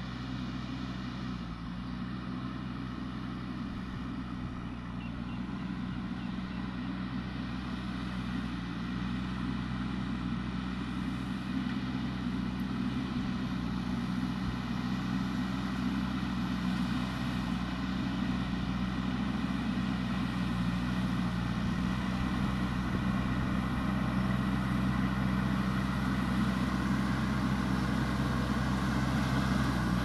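JCB 3DX backhoe loader's diesel engine running steadily under load as it pushes soil with its front bucket, growing gradually louder as the machine comes closer.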